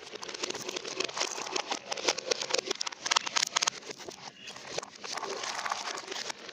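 Marbles rolling and clattering down a marble run: a dense, irregular stream of clicks over a steady rolling rumble.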